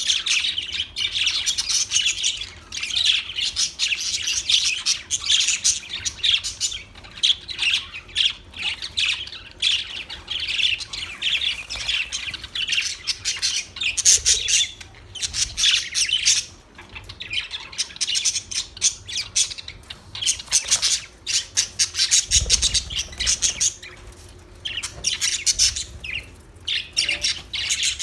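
Budgerigars chattering and chirping continuously, with rapid high warbles and harsher squawks.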